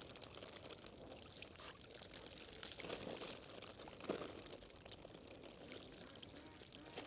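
Faint water pouring and splashing, with small swells about three and four seconds in.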